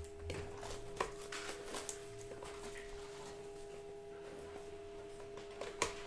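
Rustling and scraping as a sealed trading-card box is handled and opened, with a sharp click about a second in and another near the end, over a faint steady hum.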